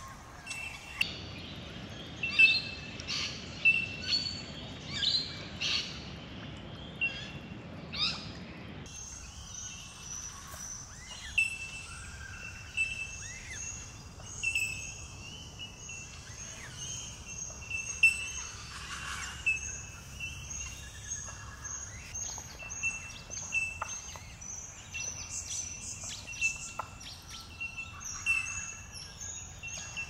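Wild birds calling: short, high chirps repeated over and over, with louder calls in the first few seconds. The low background hiss drops suddenly about nine seconds in, at a cut between recordings.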